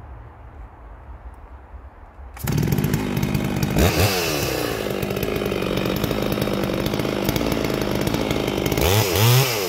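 Neo-tec NS892 two-stroke chainsaw, a Stihl MS660 clone fitted with an aftermarket cannon muffler, starting abruptly about two seconds in. It revs up and down once, runs steadily, then gets two quick blips of the throttle near the end.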